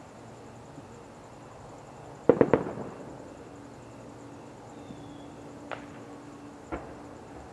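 Fireworks shells bursting. A quick cluster of about four sharp bangs comes about two seconds in and is the loudest, followed by two single bangs near the end.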